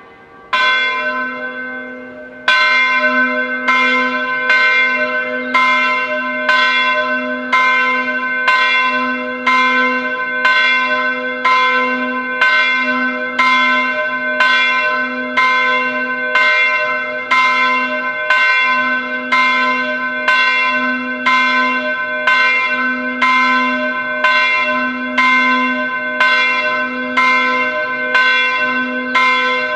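Swinging church bell starting its peal for the 11 o'clock ringing: a first stroke about half a second in, a second after a short pause, then loud strokes in a steady, even rhythm, each ringing on into the next.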